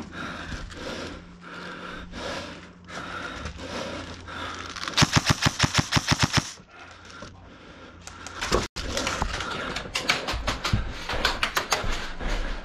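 Airsoft rifle firing a rapid full-auto burst of sharp clicking shots for about a second and a half, roughly five seconds in. Quieter airsoft shots come before it, and more short bursts follow in the second half.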